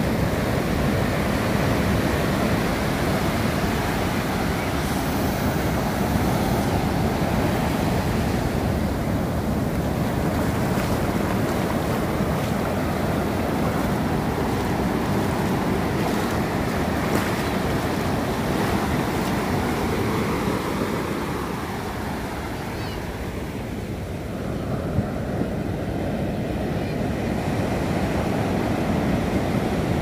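Ocean surf: large waves breaking and washing up the sand in a steady rush, easing off slightly for a few seconds about two-thirds of the way through.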